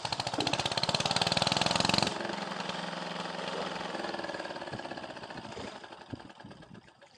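A small engine running with a rapid, even pulsing beat. It is loud for about two seconds, drops off suddenly, then runs on more quietly and fades away near the end.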